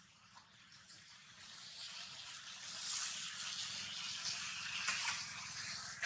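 Leaves rustling: a steady hiss that grows louder over the first three seconds and then holds, with a few faint ticks.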